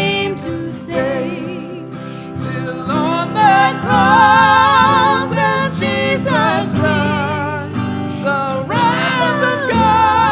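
A hymn sung with vibrato on long held notes, over digital piano accompaniment.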